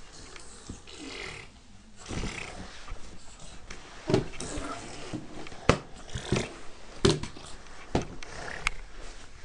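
A toddler making wordless vocal sounds, with several sharp knocks and rustling as he handles nappies on the shelves of a wooden changing table.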